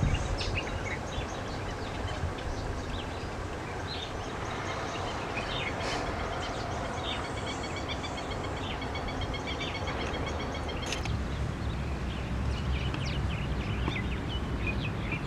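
Outdoor park ambience: birds chirping and calling over a steady low rumble, with a run of short, evenly spaced high notes between about seven and ten seconds in.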